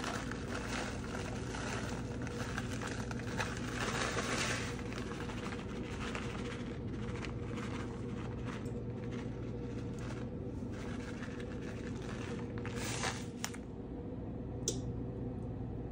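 Plastic bag of shredded parmesan crinkling and rustling as the cheese is shaken out, with a few sharp crackles near the end, over a steady hum.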